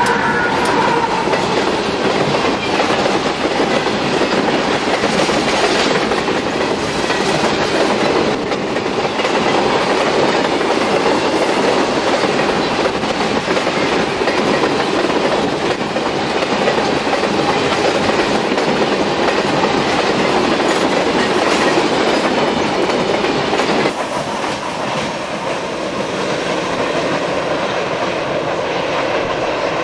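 Tank cars of a CSX sulphur freight train rolling past close by at speed: a steady rumble with wheels clacking over the rail joints. About 24 seconds in the sound drops a little and the train is heard running away.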